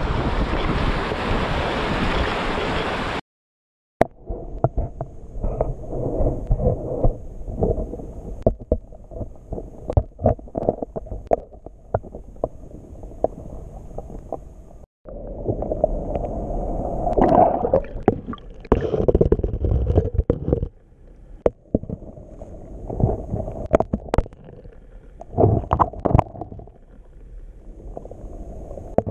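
Wind buffeting the microphone over sea surf. After an abrupt cut about three seconds in, water gurgles and sloshes, muffled and low, with many scattered sharp clicks.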